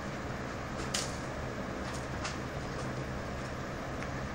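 Steady low background hum, with a few short scratches of a cat pawing at the litter in a litter box, the sharpest about a second in and another about two seconds in.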